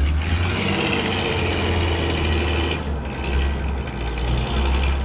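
A cartoon vehicle engine running steadily: a deep, even hum with a higher whine over it.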